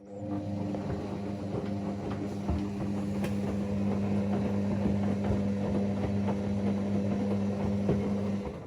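Whirlpool AWM 864 Aquaprogramm washing machine's drum motor running with a steady hum and light clicking. It starts at once and stops shortly before the end, like a single drum turn in the wash cycle.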